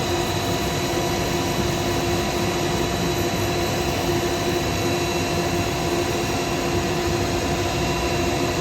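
Workshop dust extractor and wood lathe running steadily, a constant drone with a few fixed pitches over a noisy hiss, while a pen blank is dry-sanded at 800 grit.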